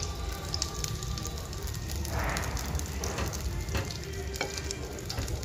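Fish frying in hot oil, sizzling with scattered fine crackles. About two seconds in there is a brief scraping, the rice paddle scooping cooked rice out of the rice cooker pot.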